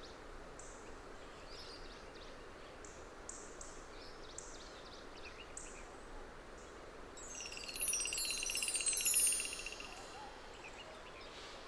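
Woodland bird calls: scattered short, high chirps over a steady background hiss. About seven seconds in, a louder run of high, falling notes with a fast pulsing trill lasts two to three seconds.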